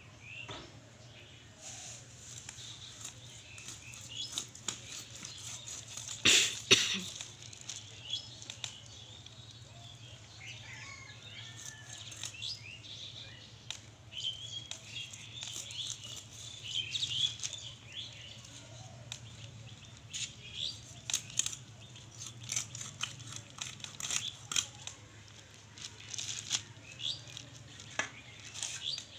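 A fish being cut up on a boti, a curved blade fixed upright on a stand, over a plastic sheet: scattered knocks, scrapes and crinkles of plastic, with one loud thump about six seconds in. Birds chirp in the background.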